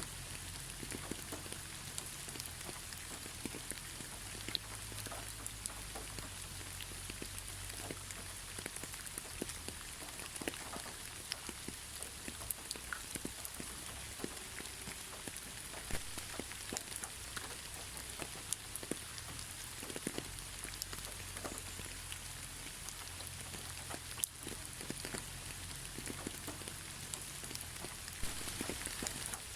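Steady gentle rain with no thunder, a constant hiss scattered with the sharp ticks of individual drops hitting nearby surfaces.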